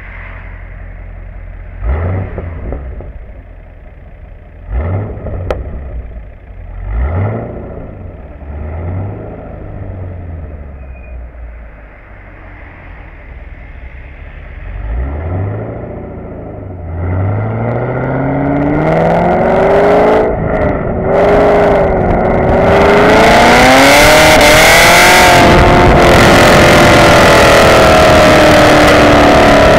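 Chevrolet Camaro's LS3 6.2-litre V8 breathing through Kooks headers, catted mid-pipes and a Borla S-Type cat-back exhaust. It gives several short bursts of throttle, then about seventeen seconds in a long hard pull whose note climbs and dips at each gear change, settling into a loud steady drone with a rushing hiss of wind at speed.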